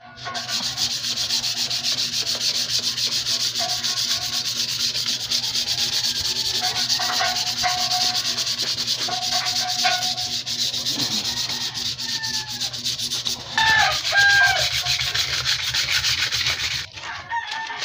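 Fast back-and-forth rubbing of a polishing pad on the aluminium engine side cover of a Honda TMX 125 motorcycle, a steady scratchy scrubbing. A couple of short pitched squeaks stand out about three-quarters of the way through, and the rubbing stops about a second before the end.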